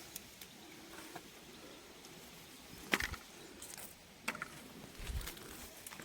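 Sharp snaps and lighter crackles of chili plant stems as peppers are picked off by hand, the loudest snap about three seconds in and another a second later. Low buffets of wind on the microphone about three and five seconds in.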